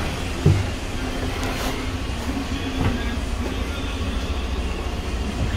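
Cabin noise of a 2018 Daewoo NEW BS090 city bus under way: the steady low rumble of its CNG engine and running gear. A sharp thump comes about half a second in, and a lighter knock near three seconds.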